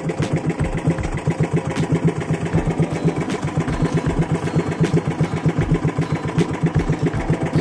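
Small fishing boat's engine running steadily with an even chug, about eight beats a second. Faint light clicks come about every second and a half.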